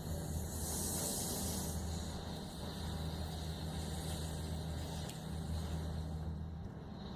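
Steady low engine-like hum, with a burst of hissing noise from about half a second to two seconds in.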